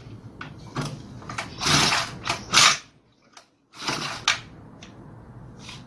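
Recoil starter of a Honda GX35 four-stroke brush cutter being pulled, the rope rasping out in several short, loud strokes, with the engine not catching.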